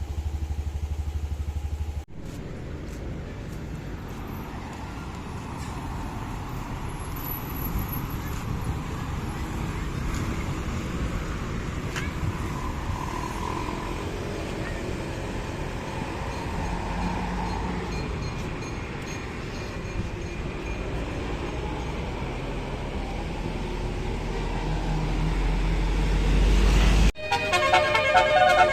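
Bus engines and road traffic running, with a heavy engine growing louder toward the end. Just before the end a multi-note 'telolet' bus horn (basuri) starts playing a tune of changing tones.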